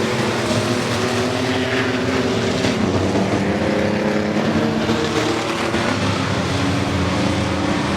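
Several race truck engines running at once, a steady mix of overlapping engine notes that rise and fall slightly in pitch.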